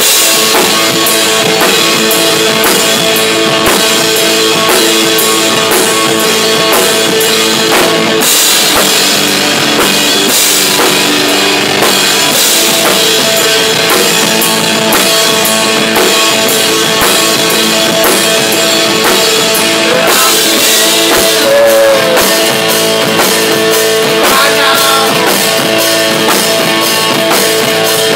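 A rock band playing loudly and without a break: drum kit with cymbals, electric guitar and bass guitar.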